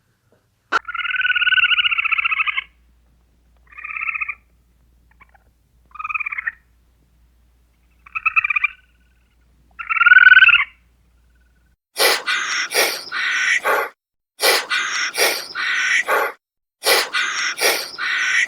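A series of animal calls: a long pitched call, then four shorter ones spaced a couple of seconds apart. From about twelve seconds in, a different, rough call repeats quickly in groups.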